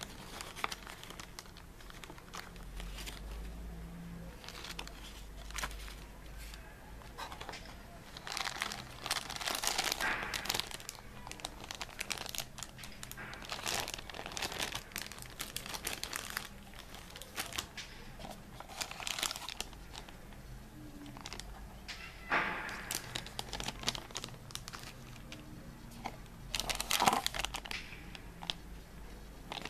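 Clear plastic zip bags and packaging crinkling irregularly as they are handled and pulled from a box, with the loudest crinkle near the end.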